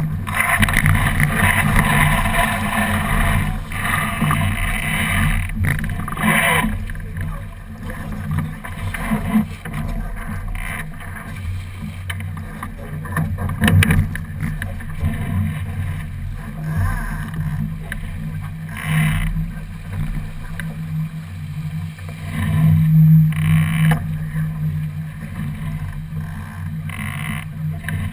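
Water rushing along the hull of a J/70 racing keelboat under sail, with wind buffeting the microphone. The hiss is loudest in the first few seconds, and a few short knocks and rattles from the sails and deck gear come through as the boat tacks.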